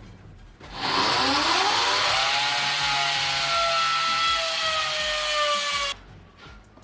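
Electric power saw spinning up and cutting for about five seconds: its motor whine rises quickly at the start, then sinks slowly under load, and the sound cuts off suddenly near the end.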